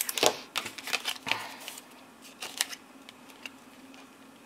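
Stiff cardstock being handled and shifted on a cutting mat, with a glue bottle set down: a cluster of rustles and taps in the first second and a half, then a few scattered light taps.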